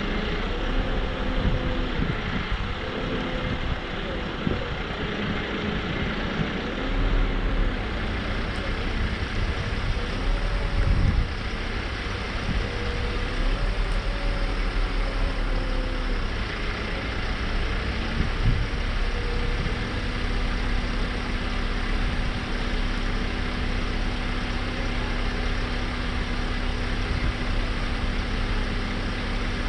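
Nissan NT400 Cabstar's diesel engine running the Isoli PT160 boom lift's hydraulics. In the first half its pitch rises and falls in repeated swells, as it does while the boom is worked. Later it settles into a steady hum, over a steady hiss.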